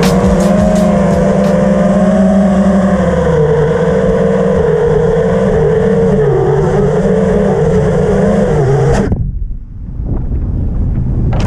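A 5-inch FPV racing quadcopter's Emax 2600Kv brushless motors and propellers whining, the pitch rising and falling with the throttle. The sound drops away abruptly about nine seconds in.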